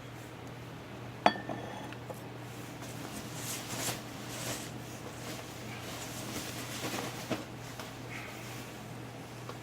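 Glass beer bottles clinking as one is taken out of the packed box, with a sharp ringing clink about a second in and a lighter knock near the end, and wrapping paper rustling in between.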